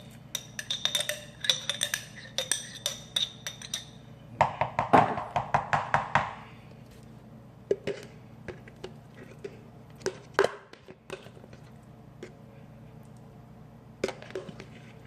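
A spoon clinking and scraping against a bowl while chicken salad is mixed. Quick ringing clinks come in the first four seconds, then a denser burst of clatter about five seconds in, then occasional single taps.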